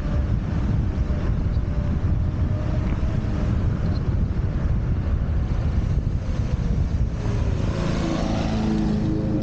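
Wind rushing over the camera microphone while riding an electric scooter at speed. About seven seconds in, a hum with several tones comes in, some of them gliding in pitch.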